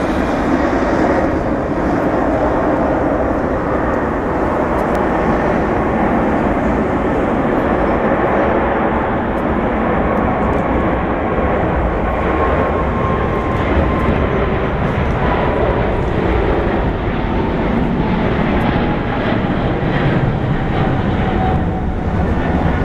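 Boeing 777-200LR's two GE90 turbofans at takeoff thrust during the takeoff roll: a loud, steady jet rumble, with a whine that slowly falls in pitch as the airliner passes and moves away.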